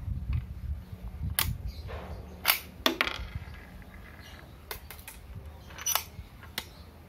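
Sharp metal clicks and clacks from the bolt of a 6mm smoothbore bolt-action rifle being worked by hand. There are about seven clicks, irregularly spaced; the loudest are a pair about half a second apart near the middle.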